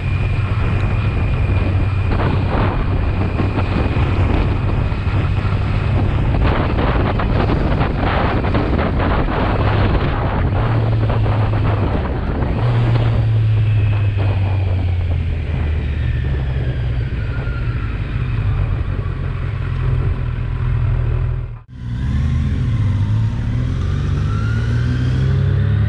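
Kawasaki motorcycle with an Akrapovič exhaust running under way, its engine note rising and falling with throttle and gear changes, with wind rushing over the microphone. The sound cuts out for an instant about 22 seconds in, then the engine climbs in pitch again.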